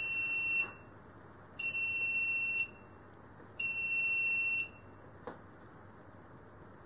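Electronic alarm buzzer on an Arduino-based tank level controller beeping a steady high tone in one-second beeps, one every two seconds, as it sounds a tank level alarm. A little over five seconds in there is a single faint click and the beeping stops.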